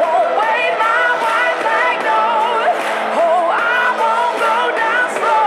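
Pop-rock song with a sung vocal line over a steady backing.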